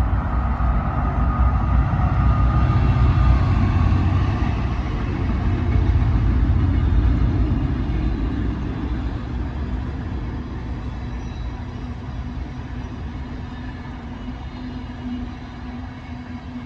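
A train passing close by on the railway line, a heavy rumble that peaks in the first half and then gradually fades as it moves away.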